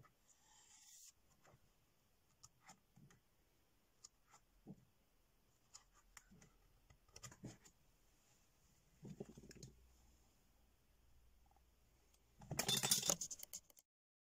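Sheets of scrapbook paper and a paper pad handled on a table: faint scattered taps and soft rustles, with a louder rustle of about a second near the end that cuts off suddenly.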